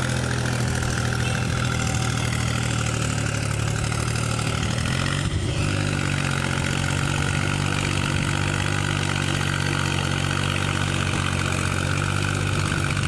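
Tractor's diesel engine running steadily under way, its note dipping briefly about five seconds in before settling again.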